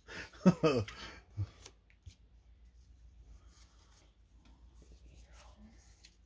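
A brief burst of voice, then faint scratchy rustling as a Pokémon trading card booster pack's foil wrapper is opened and the cards are slid out and handled.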